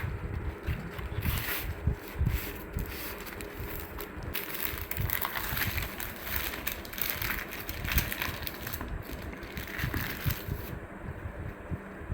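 Food packaging being handled, rustling and crinkling irregularly, with low bumps against the microphone.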